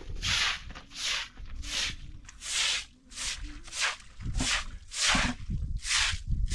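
Short straw broom sweeping water across wet ground in brisk repeated swishes, about two strokes a second.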